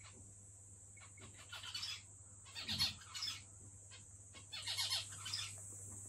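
Male zebra finch calling in three short bouts of quick repeated calls, about a second apart. This is the near-constant calling that the owner takes as the sign of a healthy, lively bird.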